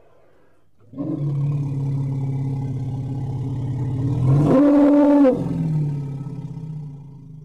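Recorded woolly mammoth call played by the mammoth display model. It is a low, drawn-out call starting about a second in, with a louder, higher-pitched stretch about four and a half seconds in, then fading away.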